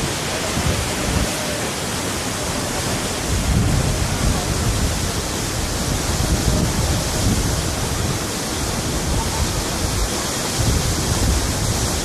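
Waterfall: a steady, loud rush of falling water with an uneven low rumble that swells and fades.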